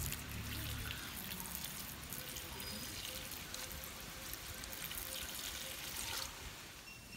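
Coconut milk poured in a stream from a plastic bowl into a clay pot of jackfruit pieces, splashing and trickling onto them; the pouring stops about six seconds in.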